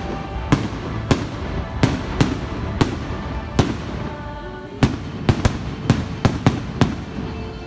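Aerial firework shells bursting close by, with about fourteen sharp bangs at uneven spacing and a quick run of them in the second half. The show's music plays underneath.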